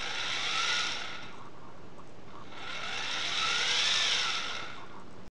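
Small RC servo whirring in two sweeps, each one to two seconds long, its pitch rising and then falling: the tail servo of a CopterX 450 Pro helicopter moving the tail rotor pitch back and forth.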